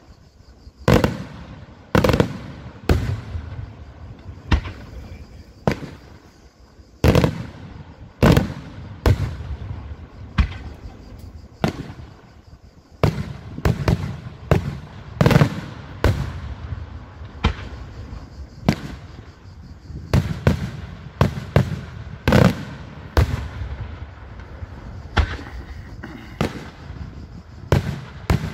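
Daytime fireworks display: aerial shells bursting overhead as a run of sharp, loud bangs, about one a second, coming a little faster from about two-thirds of the way through.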